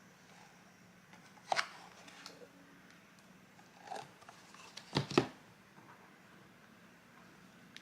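A few brief knocks and clicks of kitchen utensils or dishes being handled: one about a second and a half in, a softer one near four seconds, and a sharp double knock about five seconds in, over a faint steady hum.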